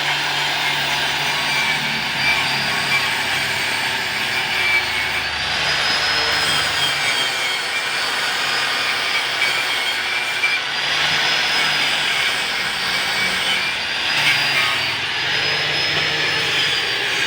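Machinery running steadily and loudly, a dense noise with a faint high whine that wavers slightly in pitch.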